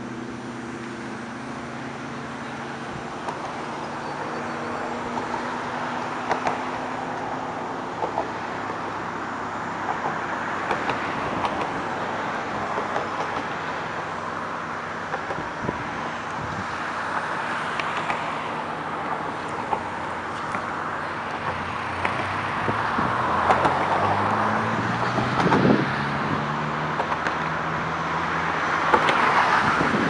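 Road traffic passing on a bridge: cars go by with a swelling whoosh every few seconds over a steady engine drone. The drone rises in pitch about three-quarters of the way through.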